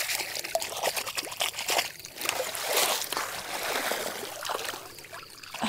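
Water splashing and trickling as woven bamboo frog traps are pulled up out of a shallow stream, water pouring and dripping out through the weave.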